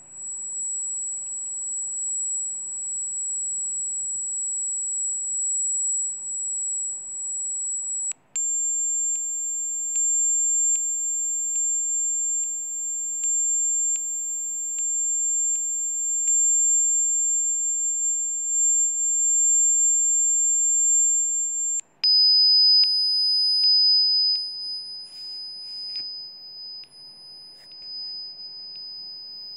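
Rife frequency tones: a single steady, high-pitched electronic sine tone that steps down in pitch twice. About eight seconds in it cuts out briefly and returns slightly lower, and about twenty-two seconds in it cuts out again and returns clearly lower.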